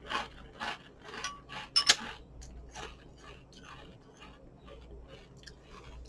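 Mouth chewing crunchy chocolate puffed cereal in milk, with a few louder crunches in the first two seconds, then softer, steady chewing.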